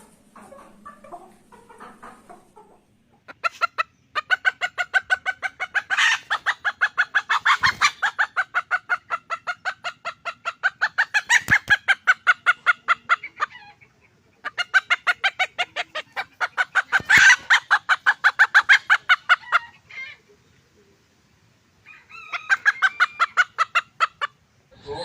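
Chickens clucking in long, rapid runs of about seven clucks a second. The runs break off briefly twice, with a shorter run near the end.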